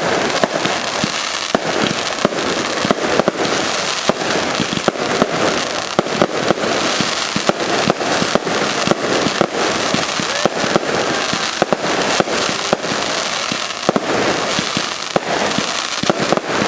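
Aerial fireworks going off in quick succession: many sharp bangs a second over continuous crackling.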